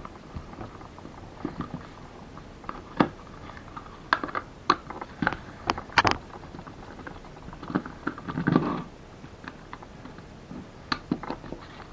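Hand screwdriver backing small screws out of a 3D-printed plastic receiver case, giving scattered light clicks and ticks of the bit and screws against the case. A longer scraping rustle comes about eight and a half seconds in.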